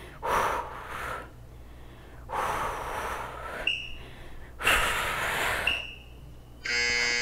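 A woman's forceful breaths during a core exercise: three loud exhales, each about a second long and roughly two seconds apart. Near the end a steady buzzing tone starts.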